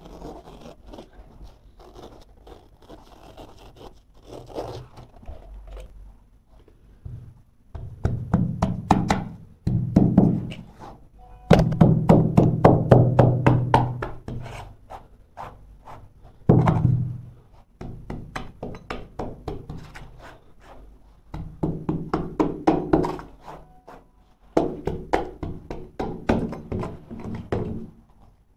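Straight-bladed utility knife slicing through carpet along the skirting board. From about a quarter of the way in comes a series of strokes, each one to a few seconds long, made of dense rapid crackles as the blade cuts the backing.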